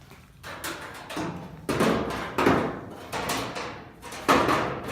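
A sandrail hood being set down and shifted into place on its frame: a run of knocks and clanks, about half a dozen, the loudest about four seconds in.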